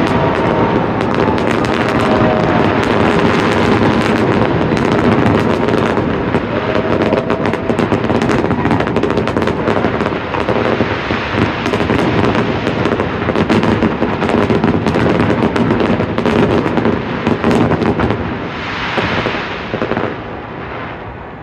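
Aerial fireworks going off in a dense, continuous barrage of overlapping bangs and crackles. The barrage thins and dies down about twenty seconds in.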